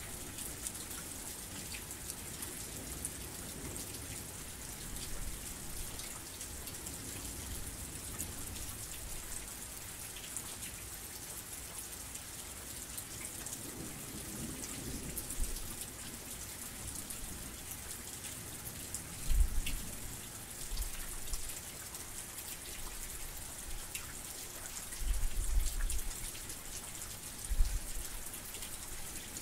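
Heavy rain falling steadily, a dense hiss with scattered individual drop ticks. Several short, low rumbling thumps come through in the second half, the loudest moments of the passage.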